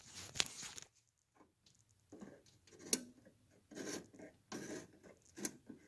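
Handling noise: irregular scraping and rubbing with a few sharp clicks, from hands working on an open window air conditioner around its fan motor.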